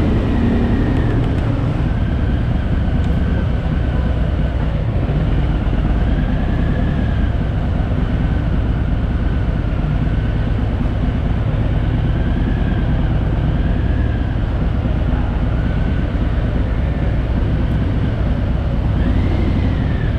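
Steady low engine rumble running without a break, with a faint higher tone that rises and falls every couple of seconds.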